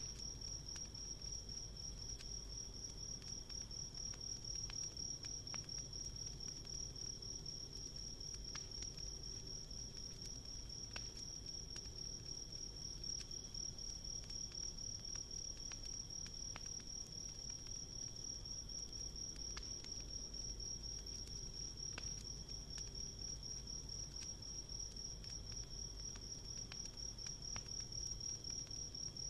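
Insects trilling steadily in one continuous high, finely pulsing chirr, with faint, scattered crackles of a wood campfire.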